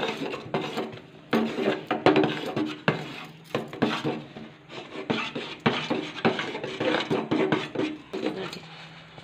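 Metal spatula stirring a thick, cooking moong dal mixture in an aluminium pot, with irregular knocks and scrapes against the pot's sides and bottom.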